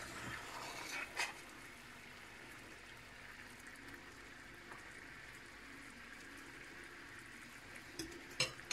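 Sugar syrup boiling in a stainless steel pan as egg threads cook in it, a faint steady bubbling. A metal slotted spatula and fork clink briefly about a second in and again near the end.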